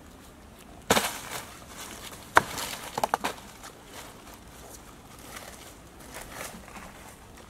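Firewood sticks being handled and laid under a clay pot: a rustling scrape about a second in, a sharp wooden knock, then a few quick clicks, after which it goes faint.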